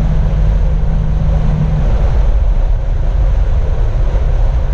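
Buick Grand National's turbocharged 3.8-litre V6 running while the car is driven, a loud, steady low rumble of engine and road noise. A steady low note in the engine sound drops away about two seconds in.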